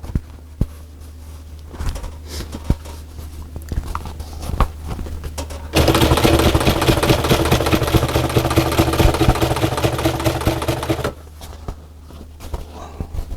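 Sewing machine stitching through leather, running steadily for about five seconds from about six seconds in, with rapid, even needle strokes. Before and after the run there are a few light clicks of handling.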